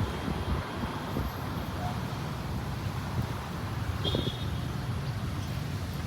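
Steady low rumble of outdoor background noise, with a faint short high chirp about four seconds in.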